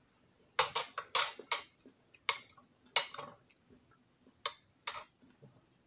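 Cutlery clinking against a plate: about ten sharp strokes, quick and bunched in the first three seconds, then a few spaced-out ones.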